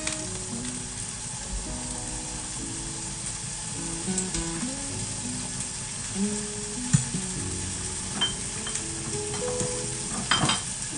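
Diced capsicum sizzling as it sautés in hot oil in a frying pan, stirred with a wooden spatula that knocks against the pan a few times, most sharply near the end.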